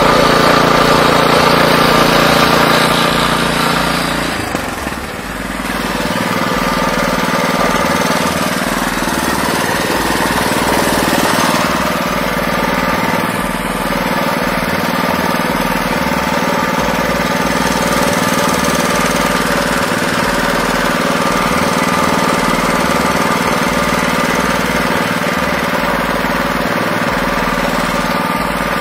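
Single-cylinder petrol engine of an Oka walk-behind tractor running steadily. About four seconds in its note dips and changes, then it runs on at an even speed as the tractor moves off.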